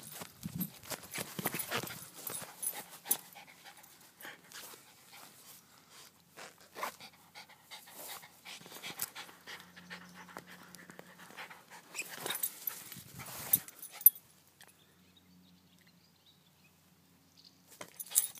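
A small dog panting close by as it plays with a ball on grass, amid irregular scuffs and knocks. Near the end there is one sharp knock, then it goes nearly quiet for a few seconds.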